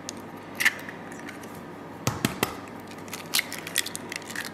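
Eggs being cracked on the rim of a stainless steel mixing bowl and dropped onto mashed banana: scattered sharp taps and cracks of eggshell, a small cluster about two seconds in and more near the end.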